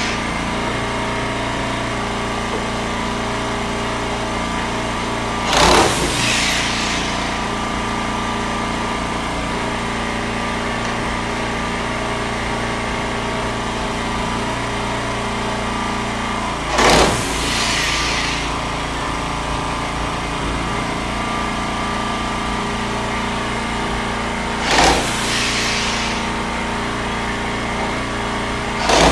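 Steady hum of running machinery, broken by four short, loud hissing bursts spaced several seconds apart.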